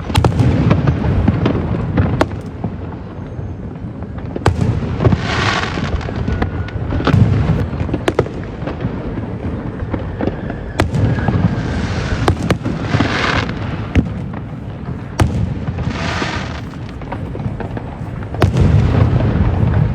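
Fireworks going off: a series of sharp bangs over a continuous low rumble of echoing booms, with longer hissing bursts about five, thirteen and sixteen seconds in.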